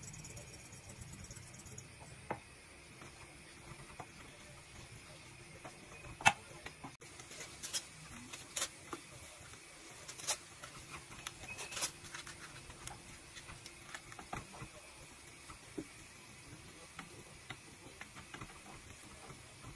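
Scattered light clicks and knocks of a spoon, a ladle and lasagna sheets being handled on a baking tray, the sharpest knock about six seconds in, over a faint steady hiss.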